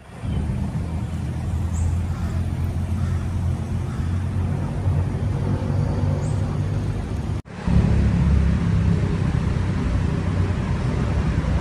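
Steady low outdoor rumble, like wind on the microphone or distant traffic. It drops out briefly about seven seconds in and comes back slightly louder.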